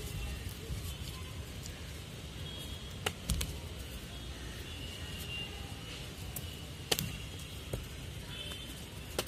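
Sharp slaps of feet striking a hand-held kick target raised overhead during jump kicks: a quick pair about three seconds in and a louder single strike about seven seconds in, over a steady low rumble.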